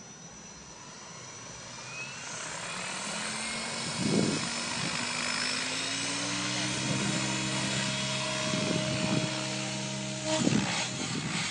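Radio-controlled model helicopter spooling up. Its whine rises in pitch and loudness over the first few seconds, then holds steady as it lifts off, with a few brief low thumps.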